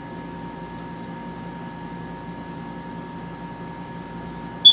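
Steady mechanical hum with two faint high whining tones, then one short, loud, high-pitched electronic beep at the very end.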